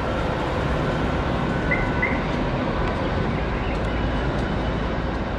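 Steady low rumble of railway and city background noise beside the tracks, with two short high chirps a moment apart about two seconds in.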